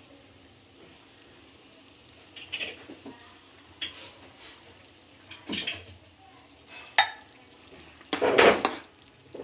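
Metal slotted spatula stirring and scraping in a kadai of boiling water with a light sizzle, as semolina is stirred in for upma. Short scrapes come every second or so, with a sharp clink about seven seconds in and the loudest, second-long scrape near the end.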